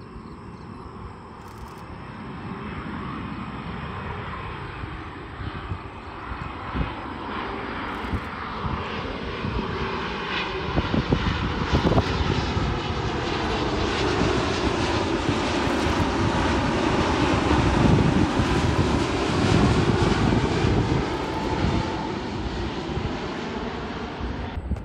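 Jet engines of a Boeing 787 airliner on final approach with landing gear down, passing close overhead: a rumble and whine that grows steadily louder, peaks about three quarters of the way through, then eases off with the whine dropping in pitch as it goes by.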